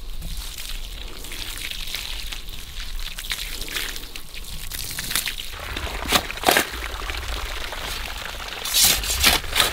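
Water from a garden hose pouring and trickling onto loose soil, with a few sharp scrapes of a shovel digging dirt about six seconds in and again near the end.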